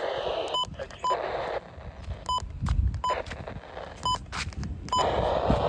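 Six short, identical electronic beeps at irregular intervals, over a steady hiss that thins out in the middle and comes back near the end.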